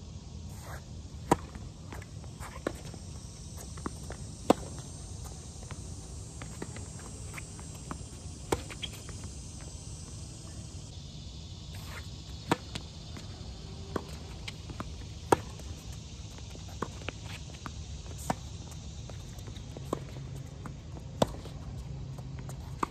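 Tennis balls struck by rackets and bouncing on a hard court: sharp single pops spaced a second or more apart, with a serve and the rally that follows from about halfway through. Footsteps on the court and a faint high insect drone sit underneath.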